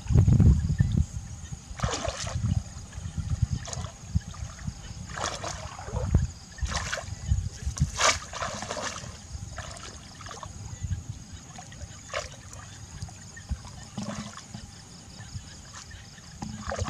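Shallow water splashing and sloshing as a bamboo plunge-basket fish trap is pushed down into muddy water and a person wades through it, with irregular splashes every second or two. A low rumble is loudest at the very start.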